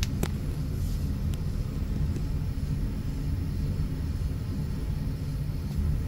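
Steady low rumble of a running heat pump air handler, with a single sharp click about a quarter-second in.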